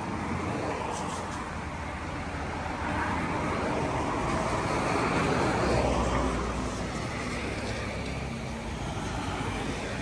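Road traffic: cars passing on a street, one vehicle swelling to its loudest about halfway through with a low engine rumble, then fading away.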